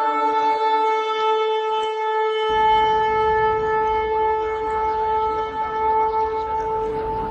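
A long horn blast held steadily on one note, with a low rumble coming in underneath about two and a half seconds in.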